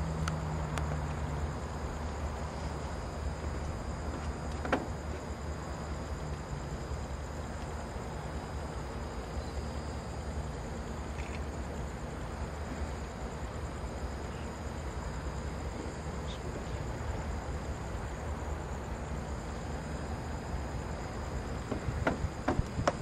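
Steady chorus of night insects chirring over a low, steady rumble from a distant idling diesel locomotive, with a single sharp click about five seconds in.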